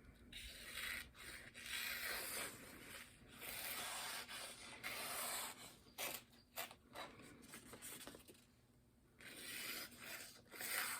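Ceramic honing rod drawn along the steel edge of an axe in repeated strokes about a second long, each with a scraping hiss. This is the final honing pass, taking off a very fine burr. A short pause comes a little after eight seconds in.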